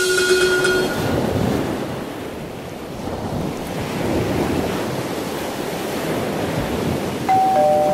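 Ocean waves and surf rushing, a steady wash of water that swells and eases. A held musical tone fades out in the first second, and a ringing tone starts near the end.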